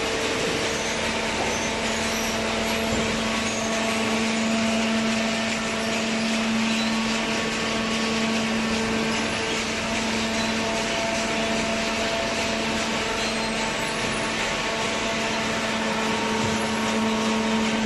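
Hydraulic cardboard baler running, its electric motor and hydraulic pump giving a steady hum and whine at an even level.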